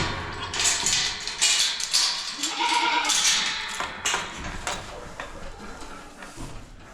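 Goats and sheep bleating, several separate calls, with knocks and rustling among them.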